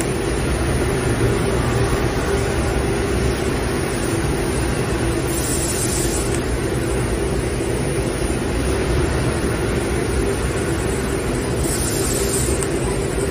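XT-K1530 coil-fed laser cutting machine running: a steady, constant hum over a low rumble, with two faint brief hisses, one about halfway through and one near the end.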